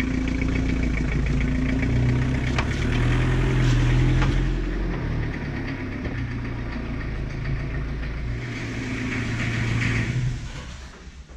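Toyota Hiace's 3L four-cylinder diesel engine running steadily as the truck moves at low speed, a little louder about four seconds in, then dying away near the end.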